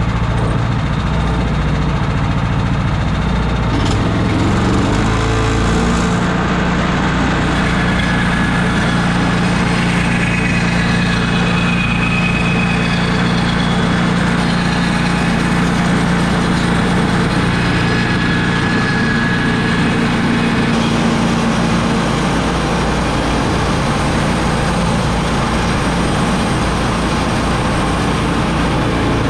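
Woodland Mills portable bandsaw mill running under load, its gas engine droning steadily while the band blade saws through a red cedar log; the engine note shifts a few seconds in, and a faint high whine rises and falls through the middle.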